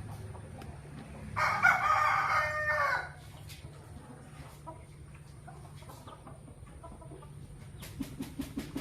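A rooster crowing once, a loud call lasting about a second and a half, starting about a second and a half in, followed by faint short chicken calls.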